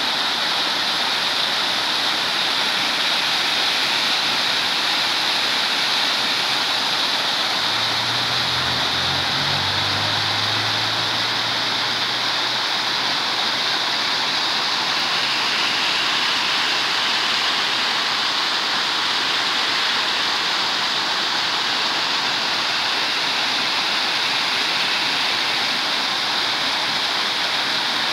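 Small waterfall splashing down a rock face into a shallow pool: a steady, even rush of falling water.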